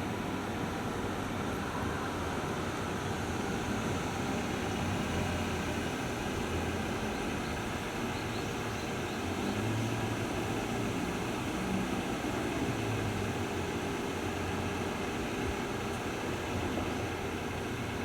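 Steady street traffic noise: vehicle engines and tyres running, with low engine hums swelling and fading as vehicles pass.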